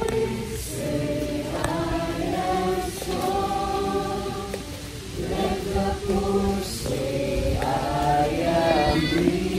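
Many voices singing a worship song together, in phrases of long held notes.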